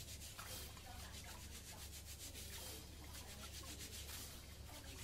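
Raw rice being washed by hand in a stainless steel bowl: the grains are rubbed against each other in quick, rhythmic, faint scrubbing strokes. The pressure is light, to polish off the bran without cracking the grains.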